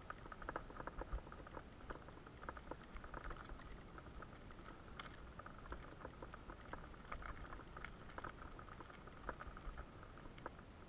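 Mountain bike tyres crackling over loose gravel, a dense run of irregular small clicks and rattles over a low rumble.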